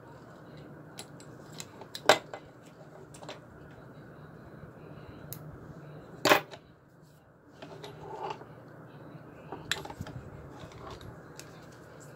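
Small metal scissors snipping sewing thread, with a few sharp metallic clicks, two louder ones about two and six seconds in, and light handling of fabric between them.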